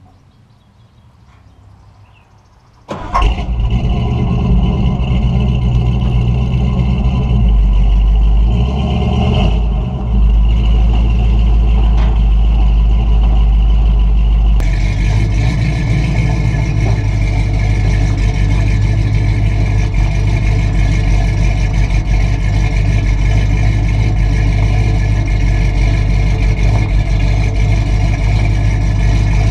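1976 Ford F350's stock 460 V8, breathing through headers and a dual 2-1/2" exhaust with Thrush Welded mufflers, starts up about three seconds in, then runs with a few blips of the throttle. About halfway through it settles into a louder, steady run as the truck drives.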